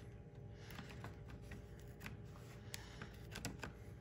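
Faint scattered clicks and rustles of hands handling a foam taxidermy manikin and modelling clay, over a steady low hum.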